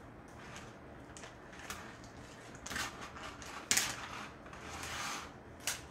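Thin plastic bags of soup broth crinkling and rustling in the hands as they are worked open. There are several short, sharp crackles, the loudest almost four seconds in.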